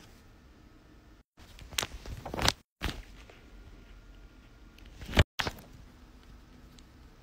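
Paper being handled and drawn on: low handling noise with a few short rustles, the loudest just after five seconds, broken by brief dead-silent gaps at the cuts.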